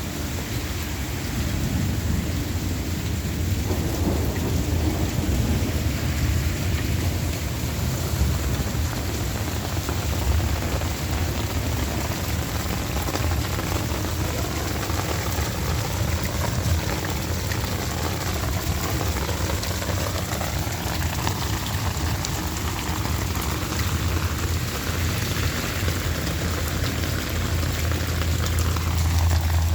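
Heavy rain pouring steadily, with a continuous low rumble of thunder that swells near the end.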